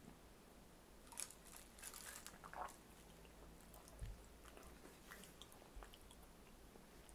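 Faint clicks of ice in a tall glass of mojito as it is brought in, then a soft knock about four seconds in as the glass is set down on the table.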